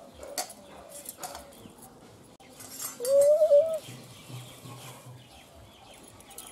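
A bird calls once about three seconds in, a short wavering note, over a few light clicks.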